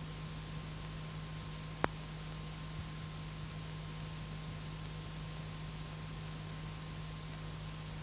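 Steady hiss and low hum of an old film soundtrack, with a faint steady whine, and one sharp click about two seconds in.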